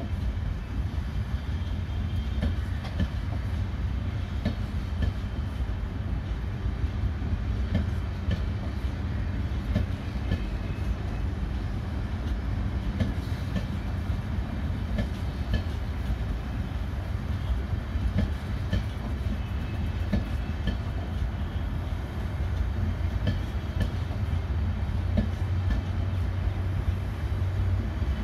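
Passenger coaches of an express train rolling past at speed: a steady low rumble of wheels on rail, with scattered sharp clicks as the wheels cross rail joints.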